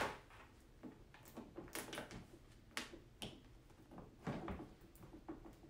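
Irregular light clicks, knocks and rustles from handling the water tank and hose while fitting the hose on, with a sharp click at the very start.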